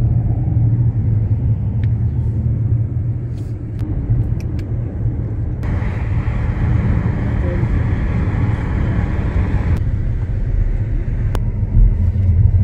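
Road noise heard from inside a moving car: a steady low rumble of engine and tyres, with a stretch of louder hiss for about four seconds in the middle.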